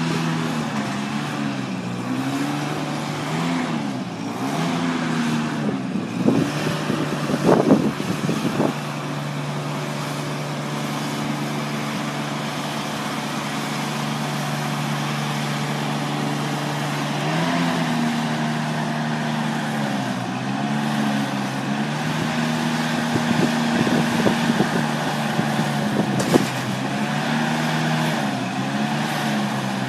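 1994 GMC Topkick's 7.0-litre fuel-injected gas V8 running while it drives the aerial lift boom's hydraulics, its pitch dipping and recovering again and again. A cluster of knocks comes about a quarter of the way in, and a single sharp click near the end.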